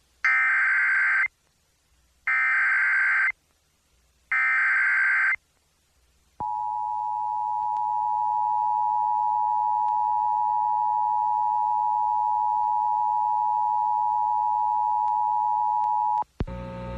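Emergency Alert System header broadcast over FM radio: three short bursts of SAME digital data tones, each about a second long and a second apart. From about six seconds in comes the EAS two-tone attention signal (853 and 960 Hz), held steady for about ten seconds and announcing that an emergency alert, here a flood warning, is about to be read.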